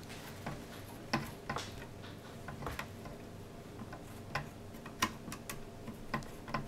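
Light, irregularly spaced clicks and ticks of a hand screwdriver working a small screw into a metal motherboard standoff, the tip and screw tapping metal on metal.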